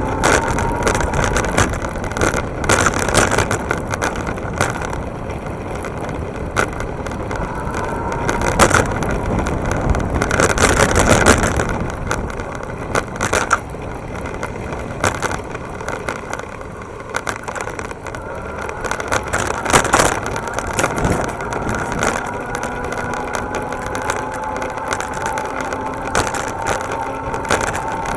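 Wind rush and road rumble from a fast-ridden electric bike on rough, broken pavement, with several sharp knocks and rattles where it hits bumps, and a faint steady whine underneath.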